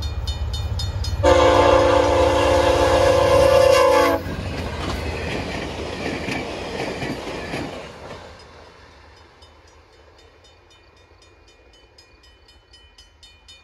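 A VIA Rail P42DC locomotive's horn sounds one long blast of about three seconds, the loudest thing here. The passenger train then rushes past, its rumble and wheel clatter fading out after about eight seconds. A level-crossing bell dings steadily throughout.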